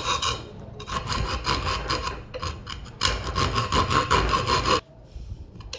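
A fine hand saw blade rasping back and forth through birch plywood in quick strokes, cutting out a star-shaped opening. About three seconds in, a file takes over, rasping louder in the cut, then stops abruptly near the end.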